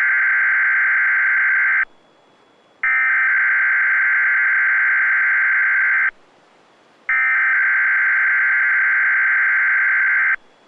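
Screeching digital data bursts from a weather radio broadcast: the coded alert header, sent three times, that switches on alert-equipped weather radios during the weekly test. One burst ends about two seconds in, then two more follow, each about three seconds long with a second's gap.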